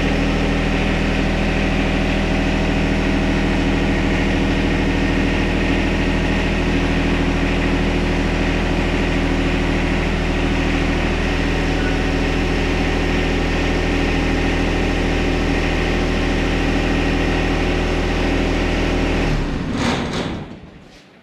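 John Deere 1025R compact tractor's three-cylinder diesel running steadily, then shut off about two seconds before the end, its sound dying away quickly.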